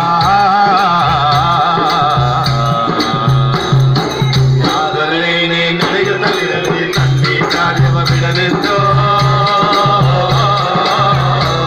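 A group singing a folk song live, voices wavering with vibrato, accompanied by a hand drum beaten in a steady rhythm and a hand-held frame drum with a rattling edge.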